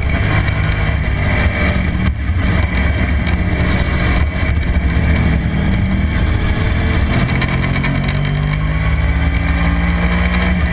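Sport motorcycle engine running hard through the bends, heard close to its carbon-fibre silencer with wind noise over it; the engine note dips briefly a couple of times and climbs steadily over the last few seconds as the bike accelerates.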